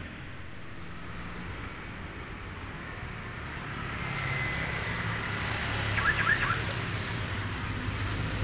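Street traffic: motorcycle and minibus engines running and passing, growing louder about halfway through. A few short high-pitched sounds come about six seconds in.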